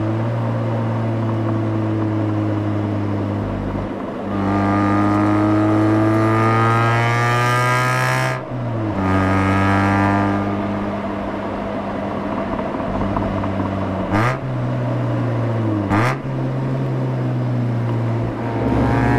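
Mazda RX-8's twin-rotor Renesis rotary engine heard through its exhaust: it accelerates with rising pitch about four seconds in, drops sharply at a gear change, pulls up again and then cruises at a steady pitch. Two short, sharp breaks in the engine note come near the end.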